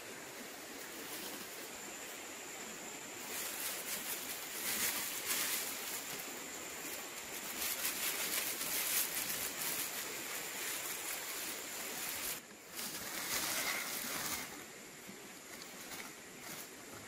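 Thin plastic bag crinkling and rustling as it is handled and shaken, loudest from about three seconds in until near the end, with a short break partway through, over a steady background hiss.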